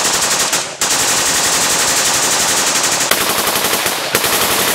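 Two AUG A3 CQC bullpup rifles firing long automatic bursts together, a rapid, continuous rattle of shots. There is a short break just under a second in and another about four seconds in.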